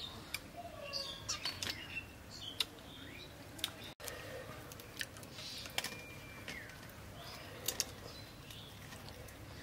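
Small birds chirping on and off in the background, with scattered sharp clicks and crunches of crab shell being eaten by hand.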